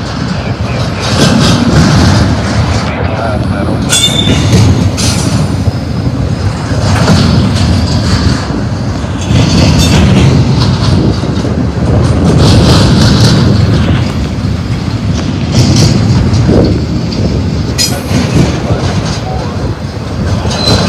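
Intermodal freight train's well cars rolling past: a loud, continuous rumble of steel wheels on rail that surges as each set of wheel trucks goes by, with clickety-clack over the joints. Brief high wheel squeals come about four seconds in and again near the end.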